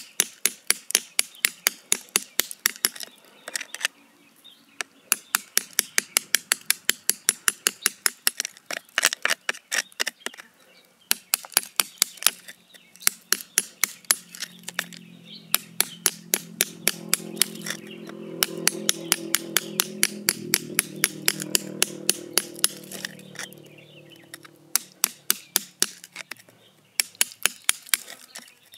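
A thin metal bar striking rock and packed soil around a stone set in the ground, chipping it loose: quick sharp taps about five a second, in runs of a few seconds with short pauses. A low hum swells and fades through the middle.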